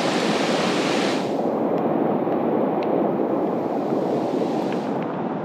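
Muddy stream rushing over rocks, a steady loud wash of water that turns duller about a second in and brightens again near the end.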